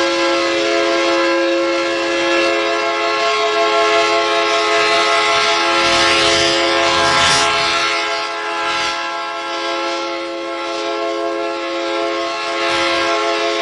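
Train horn sounding one long, steady chord of several notes over the noise of a moving train, with the noise rising to a louder rush about halfway through.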